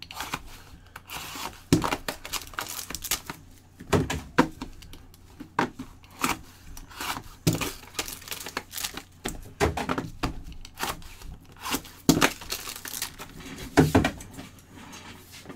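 Trading card pack wrappers being torn open and crinkled by hand: an irregular run of crackles and rips, loudest about four seconds in and again near the end.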